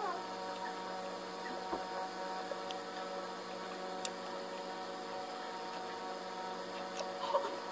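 A steady machine-like hum with a few faint clicks and smacks from someone chewing and handling food with their fingers.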